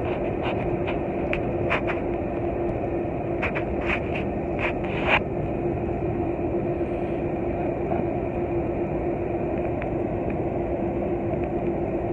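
Cabin noise of a Boeing 747-400 taxiing: the engines' steady hum with one held tone. A run of light clicks and knocks comes in the first five seconds.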